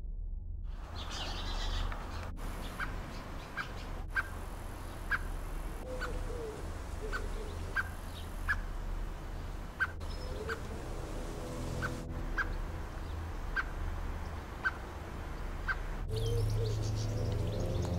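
A male Eurasian blackbird repeating short, sharp alarm calls, one note every half second to a second, scolding a cat. Softer, lower calls come in a few times over a steady low rumble.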